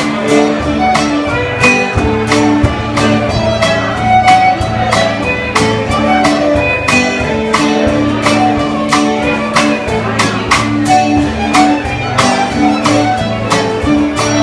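Old-time fiddle tune played live on fiddle, with an acoustic guitar strumming a steady rhythm, about three to four strokes a second.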